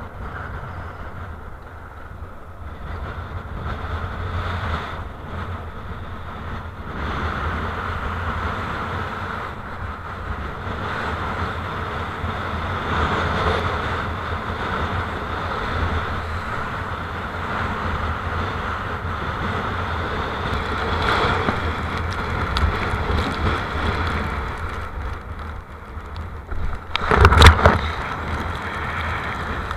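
Strong wind of about 27 knots buffeting an action camera's microphone as a kiteboard rides through whitewater, with water rushing along the board. A brief loud splash near the end.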